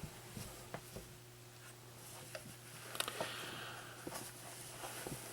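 Soft handling noises as a pocket-knife collection is rolled out: scattered light clicks and taps, with a sharper click about three seconds in and a brief rustle after it, over a steady low hum.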